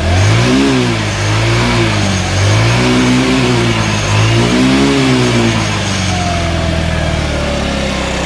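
50cc GY6-type scooter engine running on a freshly installed carburetor, blipped up and back down four times, then settling into a steady idle. The idle has just been set and holds well.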